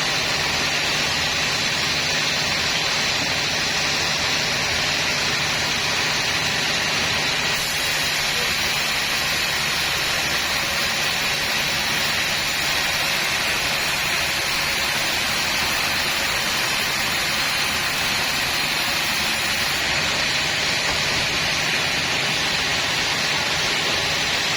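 Sawmill saw running steadily, a constant loud machine noise with a high hiss that does not change through the whole stretch.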